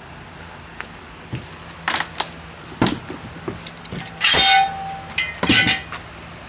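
Metal objects being knocked and shifted against each other: a string of clinks and clanks that grows louder, with a loud ringing clang about four seconds in and another sharp clank soon after.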